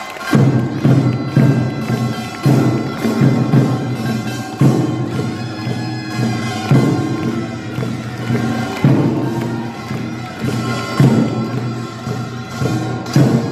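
Korean pungmul folk-band music: buk barrel drums and sogo hand drums beat a steady, driving rhythm under a held melodic line.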